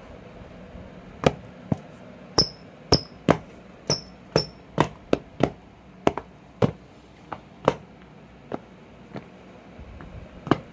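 Sneakers knocking and tapping against a hard floor as they are tried on and stepped in: a run of about twenty sharp, irregular knocks, with a few brief high squeaks between about two and four and a half seconds in.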